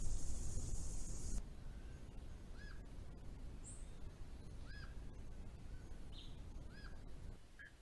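A steady high hiss for about the first second and a half stops abruptly. Then a bird calls three times, a short arched note repeated about every two seconds, with a few fainter bird chirps in between.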